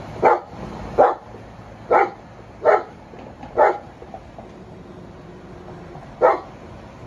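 A dog barking: six single barks, the first five about a second apart and the last after a pause of about two and a half seconds, over a steady low background noise.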